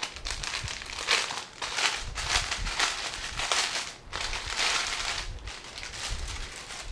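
Plastic packaging bag crinkling and rustling in irregular bursts as it is pulled open and handled.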